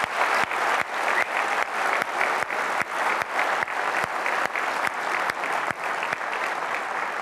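Audience applauding, with one person's claps close to the microphone standing out sharply at about three a second.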